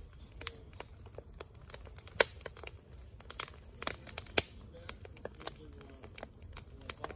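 Wood campfire of stacked logs crackling and popping, with irregular sharp snaps; the loudest snap comes about two seconds in.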